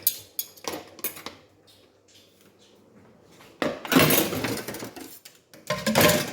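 Dishes and cutlery clattering: a few sharp clinks in the first second or so, then two longer, louder stretches of clatter.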